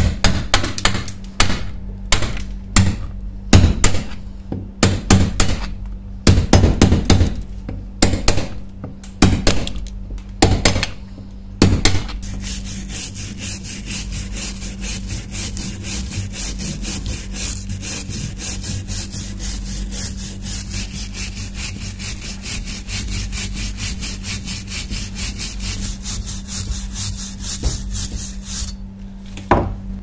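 Heavy rust being scraped off an old iron hatchet head with a flat steel blade: a run of quick, sharp, uneven scrapes. About twelve seconds in, a hand wire brush takes over, scrubbing the rusty iron in fast, even strokes until near the end.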